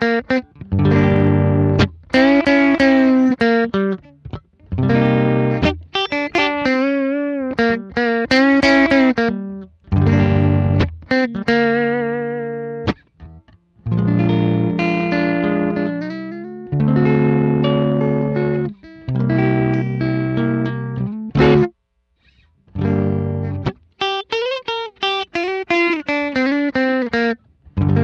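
Telecaster-style electric guitar playing a blues in C minor: sustained lead notes with string bends and vibrato over low chord notes, with brief stops about 13 and 22 seconds in.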